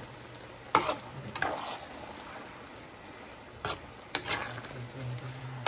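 Spatula stirring rice vermicelli noodles in simmering broth in a nonstick wok, with a few sharp scrapes and knocks against the pan over a low steady hum.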